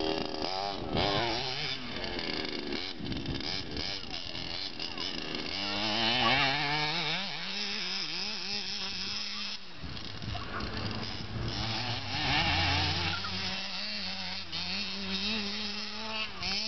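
HPI Baja 5B 1/5-scale RC buggy's two-stroke petrol engine with a tuned pipe, revving hard and easing off again and again as the buggy is driven, its buzzing pitch rising and falling, with steadier stretches between the bursts.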